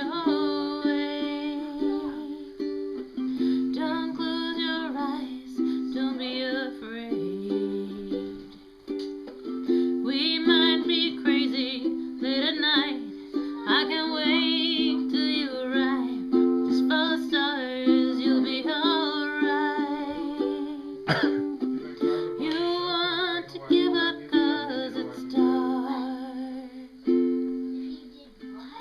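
Music: ukulele chords with a wavering higher melody line over them.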